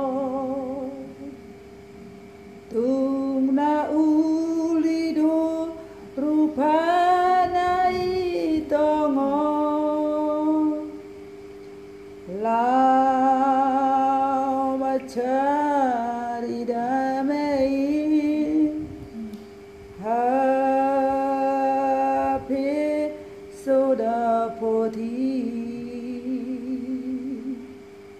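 An older woman singing solo and unaccompanied, in long held notes with a wavering vibrato and short pauses between phrases. A steady hum lies underneath.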